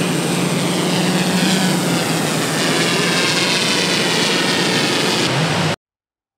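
Swellpro FD2 Fisherman Max fishing drone's propellers whirring in a loud, steady buzz as it flies carrying a bait on a line; the sound cuts off suddenly near the end.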